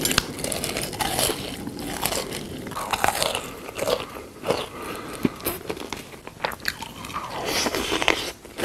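Close-up eating sounds: irregular crunching bites and chewing.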